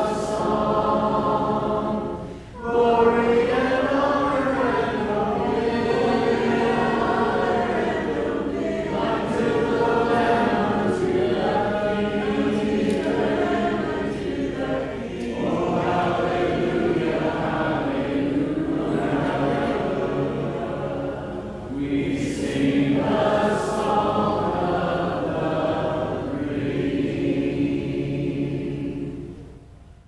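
Congregation singing a hymn together a cappella, with short breaks between phrases; the singing ends near the close.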